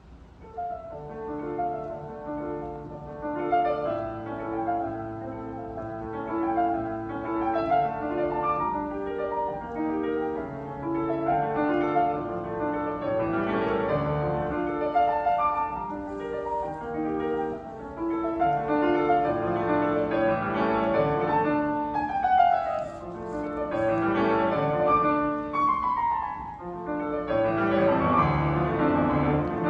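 Solo piano playing a fast, stormy piece, with quick running notes and several rapid descending runs in the second half.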